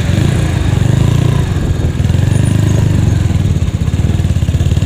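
Honda Megapro single-cylinder four-stroke engine, swapped into a Yamaha Mio scooter, running at low speed with a steady low-pitched throb.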